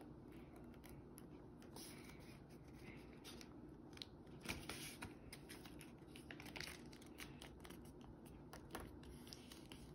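Faint rustling and creasing of a thick, many-layered fold of A4 printer paper being pressed down by hand, with scattered soft crinkles.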